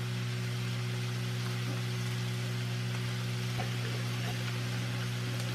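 Broccoli sizzling gently in a skillet, a steady hiss, under a constant low hum.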